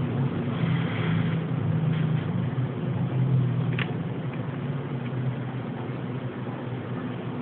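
A man snoring in his sleep: a low, rattling rumble, strongest through the first four seconds and weaker after.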